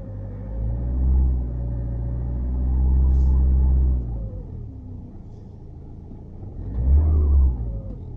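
Opel Vivaro's 2.5-litre G9U diesel engine revved twice and falling back to idle in between. It carries the unexplained noise and whistle that the owner is trying to track down.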